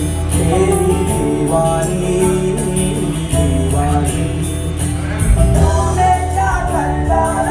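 Music with singing over a strong, steady bass line, played loud.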